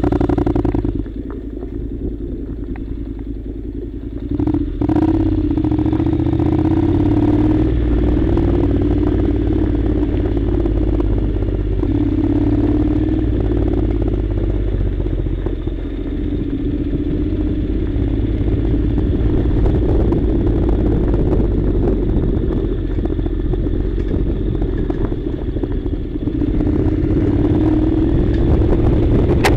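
Honda NC700's 670 cc parallel-twin engine running: quieter for the first few seconds, then louder from about four and a half seconds in and running steadily as the bike rides off road, with clattering over the rough ground.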